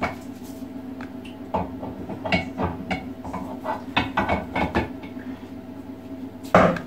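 Clinks and knocks of a vertical stainless-steel sausage stuffer being handled while its plastic plunger disc is fitted, scattered through the middle, with a louder knock near the end. A faint steady hum lies underneath.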